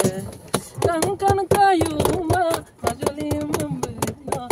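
People singing a song in held, wavering notes, with sharp hand claps throughout.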